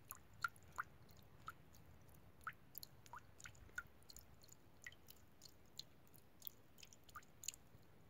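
Quiet shallow stream trickling over stones, with irregular small gurgles and water plinks, a few rising quickly in pitch, two or three a second over a faint low murmur.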